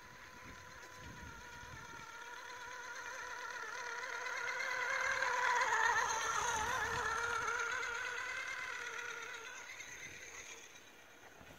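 Electric RC car's brushless motor, run by a VESC6 controller, whining steadily as the car drives over grass. The whine grows louder as the car passes close about six seconds in, then fades as it drives away.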